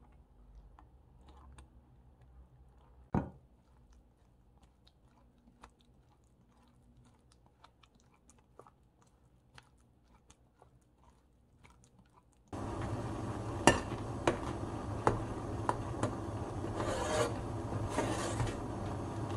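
Faint soft scraping of a silicone spatula pressing mashed corn and potato through a mesh strainer, with one sharp click about three seconds in. About two-thirds in, the sound jumps to a louder metal spoon scraping and knocking against a pot as thick soup is stirred, over a steady hiss.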